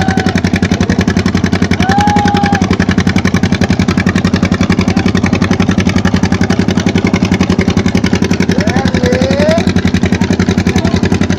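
Boat engine running steadily with a fast, even throb. A few short gliding tones sound over it, about two seconds in, near nine seconds and at the end.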